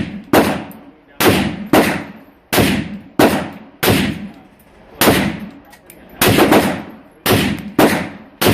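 Semi-automatic rifle fire from a short-barrelled 7.62x39 AR-15: about fourteen rapid shots, several in quick pairs, each followed by a fading echo.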